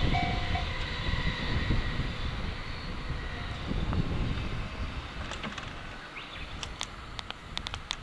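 JR E231 series ten-car electric train running away over the rails, its rumble fading steadily. A level-crossing alarm's two-tone ding-ding stops about half a second in. A few sharp bird chirps come in near the end.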